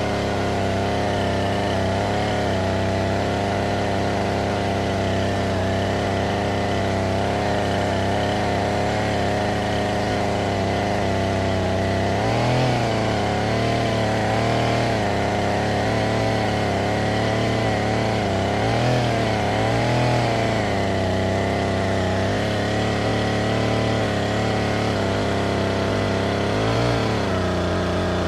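Chainsaw engine running steadily while cutting wood, its pitch wavering briefly a few times as the chain loads up in the cut.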